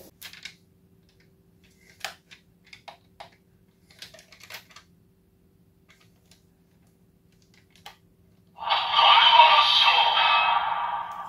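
Light plastic clicks and snaps as the DX Valvarusher toy weapon is handled, then, about three-quarters of the way in, its small built-in speaker plays a loud electronic sound effect.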